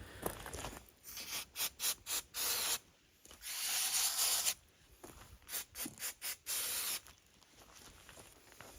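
Hissing bursts of pressurised spray: a quick run of short sprays, one longer spray of about a second, then a few more short sprays.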